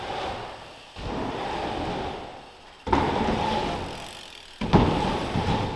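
Mountain bike tyres rolling on skatepark ramps: a surge of rolling noise that starts suddenly about every two seconds and fades away, as each ramp is ridden.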